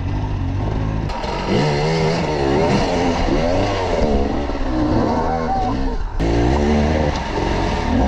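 Off-road motorcycle engines revving up and down over and over in short throttle bursts, several bikes overlapping, with a brief break about six seconds in.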